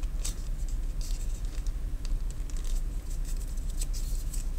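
Small clicks and rustles as a leather hanger strap is handled and fitted back onto a knife sheath, over a steady low hum.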